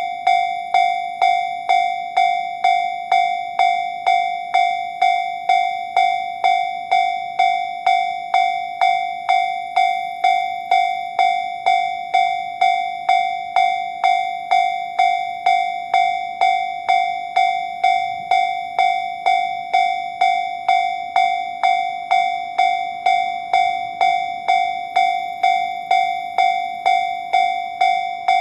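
Japanese railway level-crossing warning bell sounding the standard JR electronic tone: an evenly repeated ringing 'kan-kan' at about two strikes a second, each strike fading before the next. It signals that a train is approaching the crossing.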